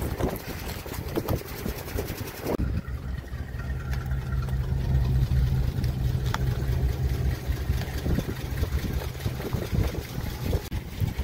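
1951 Cadillac's V8 idling steadily with a low, even rumble; about two and a half seconds in the rumble gets stronger and the hiss over it drops away.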